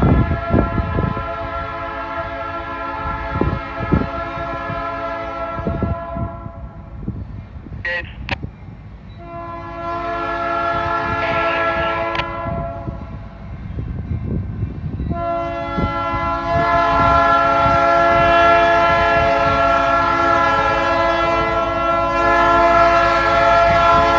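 Diesel freight locomotive's multi-chime air horn sounding for grade crossings in long blasts. One blast ends about 7 seconds in, a second sounds from about 10 to 13 seconds, and a third starts about 15 seconds in and grows louder as the train nears. There are low thumps during the first few seconds.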